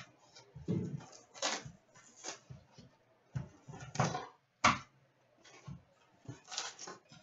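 Hands opening a cardboard box of sealed trading-card packs and handling the packs on a glass counter: irregular rustles, crinkles and sharp light taps.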